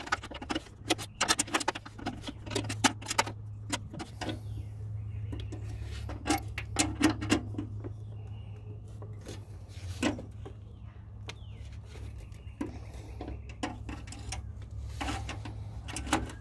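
Hand tap in a T-handle tap wrench turning into a drilled hole in steel, cutting M6x1 threads: irregular metallic clicks and ticks as the tap is worked back and forth, with a steady low hum underneath.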